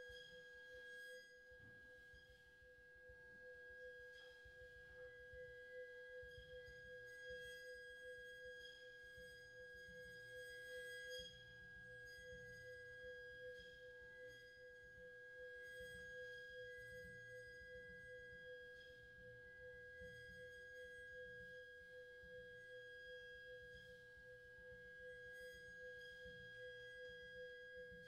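Two faint, steady pure tones, one middle and one high, held unbroken like a drone, with a light low rumble beneath.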